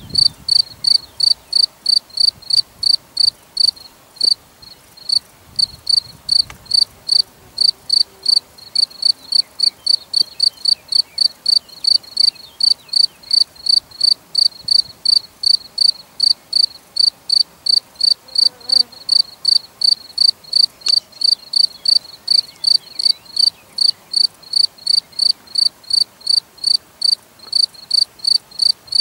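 A cricket chirping in a steady rhythm of short high chirps, about three a second, with a brief pause about four seconds in.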